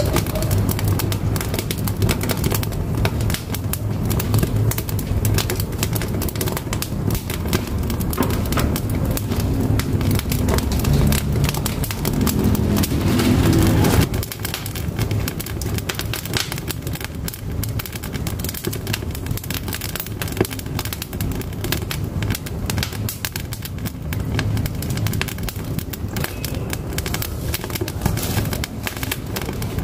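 Firewood burning in a wood-fired stove, with a continuous stream of small crackles and pops. A lower rumble under the crackling in the first half cuts off abruptly about halfway.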